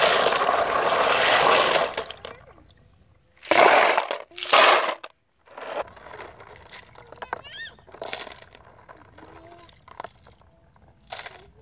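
Hands stirring live snails in a plastic basin of water: sloshing water with shells clattering against each other, loudest in the first two seconds, two short bursts a couple of seconds later, then quieter swishing.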